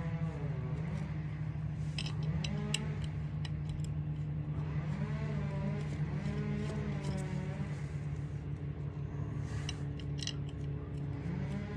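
Background music: a steady low drone under a melody that bends up and down, with a few sharp metallic clicks about two seconds in and again near the end.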